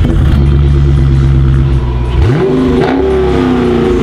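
2015 Dodge Challenger SRT 392's 6.4-litre HEMI V8 idling steadily, then revved once about two seconds in, the revs climbing quickly and falling away over the following couple of seconds.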